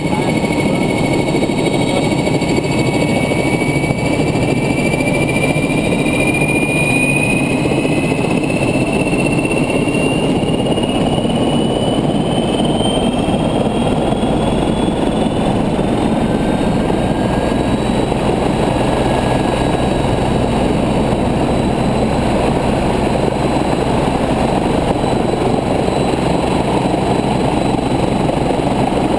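Agusta helicopter's turbine engine running on a ground run with the rotor turning, a steady loud rush under a high turbine whine. The whine climbs slowly in pitch over the first half, then holds steady.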